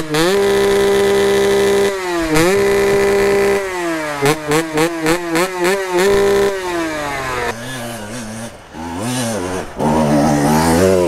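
Dirt bike engines. One is revved hard at a standstill and held at a steady high pitch, then blipped quickly about twice a second before its pitch drops away. After that, bikes climb a slope, with several engines rising and falling under load.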